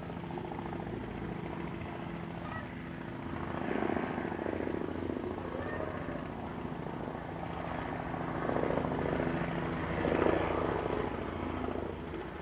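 Light helicopter flying overhead: a steady drone of engine and rotor with a fast rotor beat, swelling louder about four seconds in and again near ten seconds.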